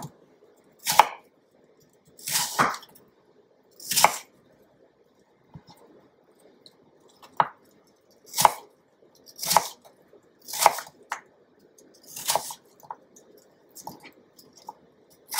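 Kitchen knife cutting a peeled green apple on a wooden cutting board: separate knocks of the blade through the fruit onto the board, irregularly about a second apart, with a pause of a couple of seconds in the middle and lighter taps near the end.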